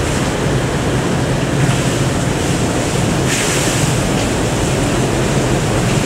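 Steady rushing noise with a constant low hum as a river-rapids raft rides the conveyor lift ramp up to the station: water running and the lift machinery. A short louder hiss comes a little past halfway.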